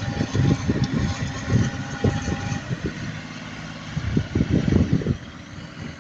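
Land-milling machine running, its engine noise overlaid with irregular low thumps. A thin steady whine stops about halfway through.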